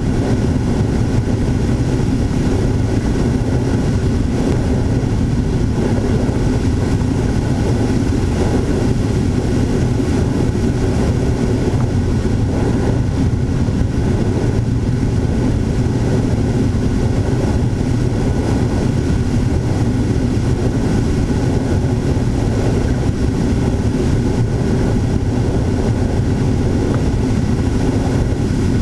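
FPV model aircraft's motor and propeller running steadily, heard through its onboard camera's microphone together with the rush of wind. The sound stays even throughout, heaviest in the low range.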